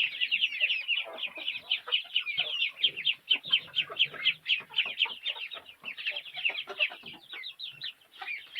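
A flock of young chickens calling: a dense, overlapping run of short high-pitched cheeps and clucks, several a second.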